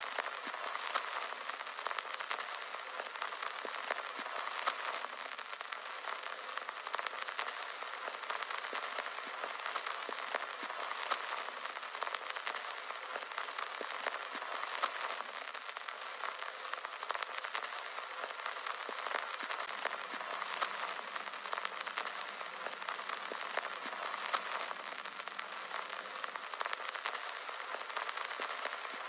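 Steady crackle and hiss, dense with small random clicks, the surface noise of an old-film crackle effect.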